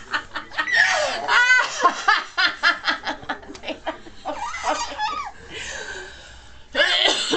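Eight-month-old baby laughing in repeated bursts of belly laughter, with an adult laughing along.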